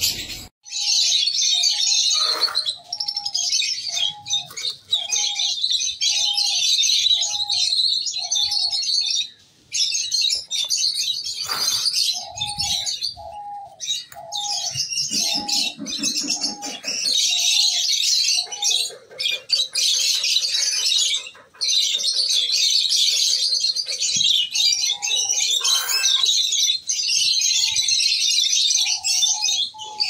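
A colony of rosy-faced lovebirds chattering with dense, continuous high chirps, with a few brief breaks. Under the chatter a lower short call repeats about every two-thirds of a second in runs.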